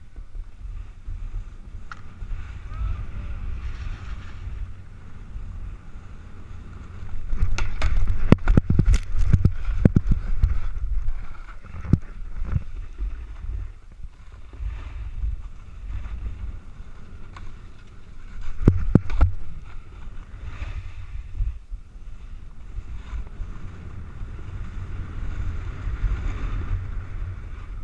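Wind buffeting a GoPro microphone while a snowboard slides over chopped-up, tracked snow. There are two louder, rougher stretches of the board scraping and chattering over the surface, about a quarter of the way in and again about two-thirds of the way through.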